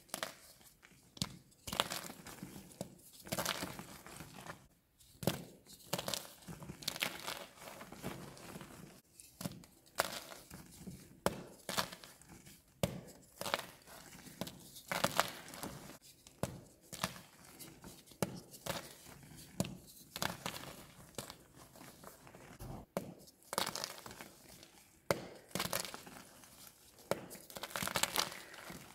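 Blocks of gym chalk crushed and crumbled in the hands: irregular crunches, some sharp and loud, over softer crumbling and crackling as the chalk breaks into powder and crumbs.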